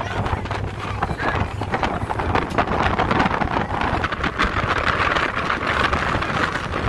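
Wind buffeting the microphone on the open deck of a moving passenger ferry, over the low steady drone of the ferry's engines and the rush of water.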